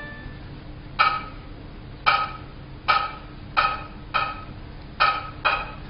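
Chinese opera percussion: seven sharp, high-pitched single strikes with a short ring, spaced about a second apart at first and coming quicker toward the end.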